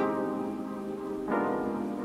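Background music: held notes or chords, with a new one entering about every second and a quarter after the beat drops out.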